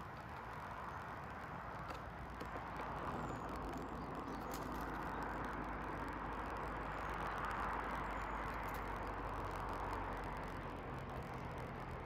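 A distant vehicle passing: a steady rush of engine and tyre noise that swells to its loudest about two-thirds of the way through and then fades.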